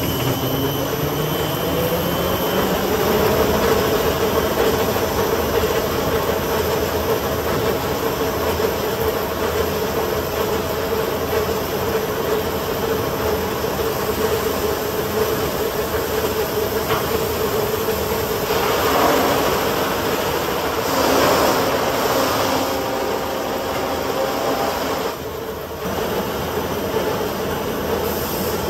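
STYLECNC STM1000-S4 CNC wood sanding machine running, its spinning polishing rollers and disc brushes giving a steady mechanical whine that rises in pitch over the first few seconds and then holds. Two louder rushing stretches come past the middle.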